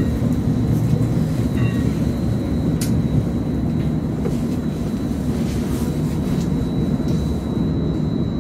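Inekon 121 Trio streetcar in motion, heard from on board: a steady rumble of the running gear with a thin, steady high whine, and one sharp click about three seconds in.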